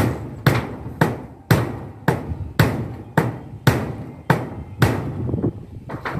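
Steady hammering, about two blows a second, with a short ring after each blow: nailing down the foot of a satellite dish stand on a sheet-metal roof.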